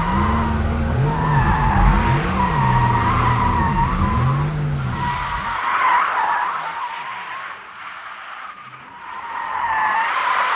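2021 Porsche Taycan Turbo's tyres squealing as the car drifts, a wavering squeal that fades in the middle and builds again near the end. A low hum rising and falling runs underneath for about the first half, then drops away suddenly.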